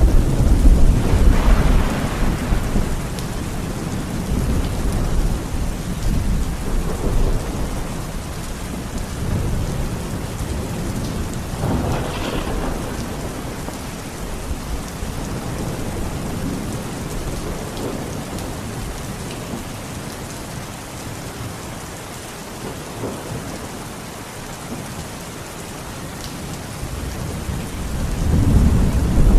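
Heavy rain falling steadily through a thunderstorm, with rolling thunder: a loud rumble at the start, another about halfway through, and a third building up near the end.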